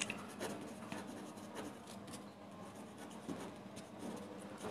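Pen writing on a sheet of paper: faint, quick, irregular scratching strokes.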